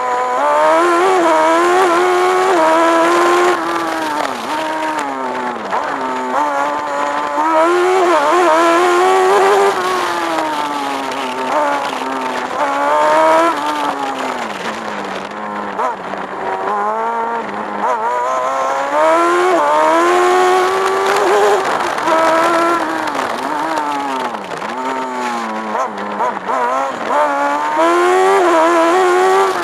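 Onboard sound of a Kalì Kart racing car's Honda engine, heard from the cockpit, revving hard and falling back over and over as the car accelerates and slows between slalom cones, its pitch climbing and dropping every second or two.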